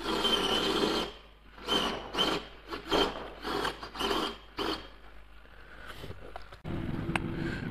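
Hacker Ditex mainsheet winch servo whirring as it turns the sail drum: one longer run of about a second, then a series of short bursts as it is stepped back and forth. Near the end a steady, lower hum takes over, with a single click.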